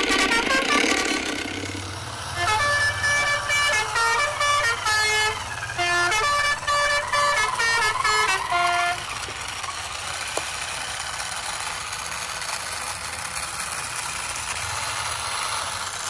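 Electronic toy-vehicle horn and tune: a string of short beeping notes stepping up and down in pitch for about six seconds, then a steady low hum with hiss.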